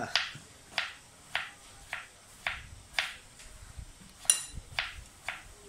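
Kitchen knife chopping vegetables on a cutting board, each stroke a sharp knock, about two a second. One louder stroke about four seconds in has a brief metallic ring.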